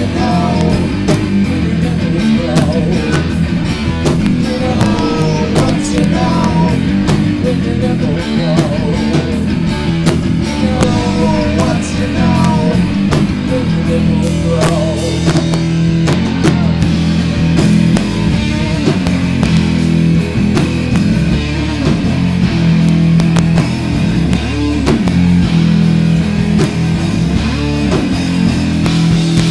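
A live rock band playing a song loudly: electric guitar and drum kit, with sustained low notes and steady drum hits throughout.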